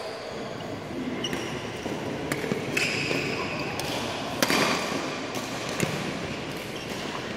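Badminton rally: several sharp racket strikes on the shuttlecock, a second or more apart, the loudest about halfway through, with short squeaks of court shoes on the floor between them.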